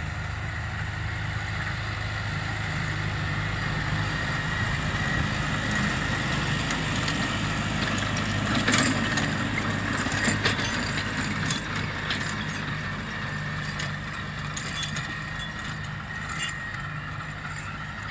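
Kubota MU5501 tractor's diesel engine running steadily under load while its rear rotary tiller churns dry paddy soil, with a few sharp clicks around the middle.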